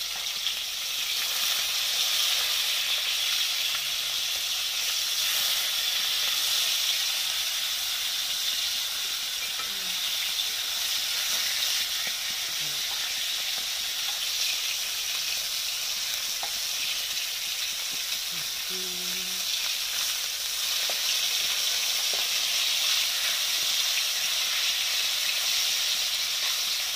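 Marinated fish steaks shallow-frying in hot oil in a nonstick frying pan: a steady sizzle with a few faint clicks.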